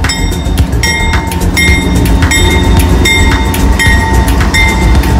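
CSX freight train's diesel locomotives rumbling past at close range over a street crossing, while a grade-crossing bell rings steadily, two to three strikes a second.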